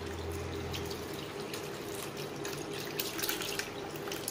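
Tamarind water poured from a steel bowl through a wire-mesh strainer, splashing and trickling steadily, a little louder about three seconds in.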